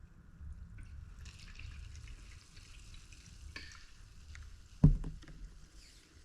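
Coke fizzing and hissing as it is poured from the bottle, a steady carbonated hiss, then one sharp knock near the end, like the bottle being set down.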